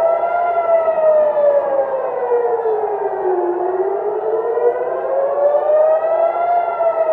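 Civil-defence air-raid siren wailing, its pitch slowly rising and falling in a cycle of about six seconds: a rocket-attack warning.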